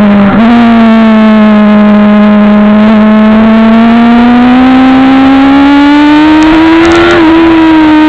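Suzuki GSX-R750 SRAD's inline-four engine at high revs, heard loud from on board the motorcycle. The note drops briefly just after the start, then climbs steadily for several seconds as the engine pulls, and eases back near the end.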